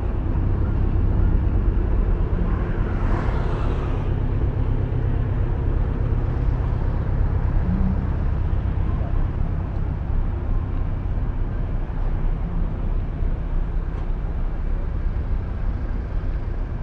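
Steady city street traffic: a low rumble of vehicles running past, with a brief hiss about three seconds in.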